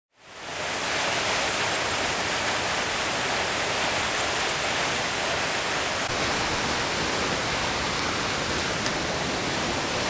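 Steady rush of the Aira Force waterfall, fading in over the first second and then holding even.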